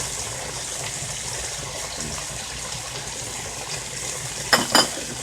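Steak frying in butter in a pan, a steady sizzle. Two short louder sounds come near the end.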